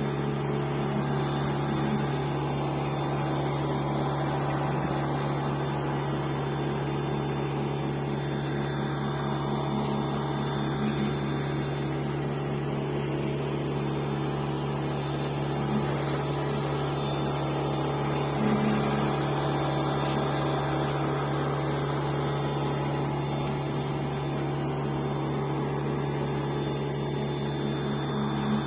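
Electric pressure washer running steadily, its motor and pump giving a constant low hum.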